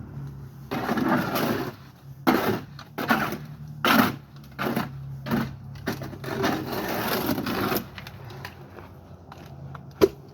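Shovel scooping and scraping concrete mix in a series of gritty strokes of uneven length, over a steady low hum, with a single sharp knock near the end.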